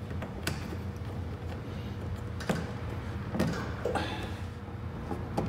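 Plastic wheel-well water shield being pressed and worked into place by hand, giving a few separate clicks and knocks of plastic over a steady low hum.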